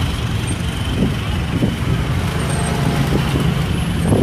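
Vehicle engines running close by in slow road traffic, a steady low drone.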